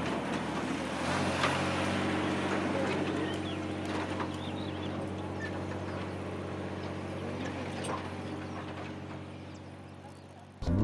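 A motor vehicle's engine running at a steady pitch, with loose rattling and clatter over it, fading out near the end.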